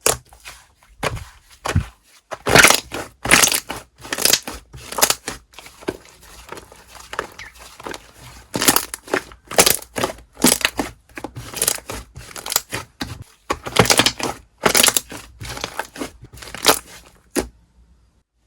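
Slime being squeezed and pressed by hand: an irregular run of crisp, crunchy squishes with short pauses, stopping shortly before the end.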